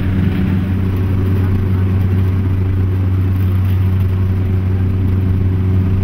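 Beechcraft King Air's twin PT6A turboprop engines and propellers heard inside the cabin: a loud, steady drone with a low, constant hum.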